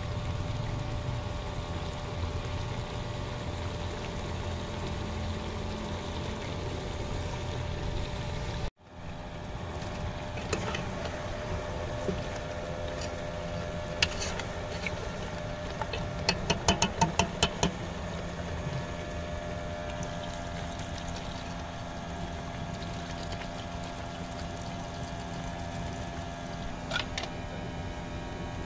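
Steady hiss of chicken curry cooking hard in an open aluminium pressure cooker over a burner, with a metal spoon stirring and knocking against the pot. A quick run of about eight sharp taps comes in the middle.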